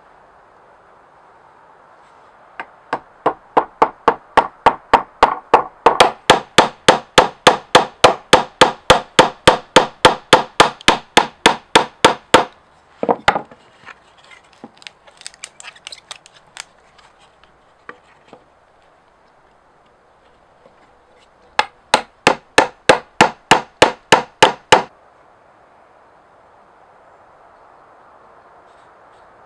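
A hammer tapping rapidly and evenly, about four sharp strikes a second, in a long run of some ten seconds. After a pause with a few softer, irregular knocks, a shorter run of about three seconds follows.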